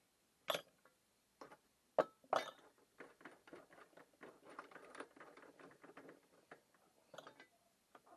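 Tools and small parts being handled on a workbench: a few sharp knocks, the loudest about two seconds in, then a run of light clicks and scratching.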